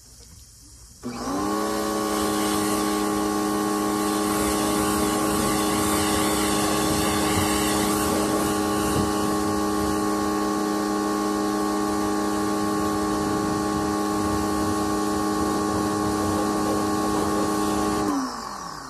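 Electric pressure washer starting about a second in: its motor and pump come quickly up to speed and run with a steady whining hum under the hiss of the water spray. Near the end they wind down, the pitch falling, as the spray gun's trigger is let go.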